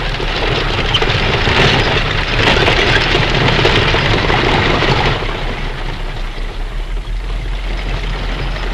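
Film sound effects of a horse-drawn wagon train on the move: a dense rumbling mix of hooves and wheels, louder for about the first five seconds, then easing off. Under it runs a steady very low hum from the Perspecta control tones (30, 35 and 40 Hz) recorded on the mono optical track.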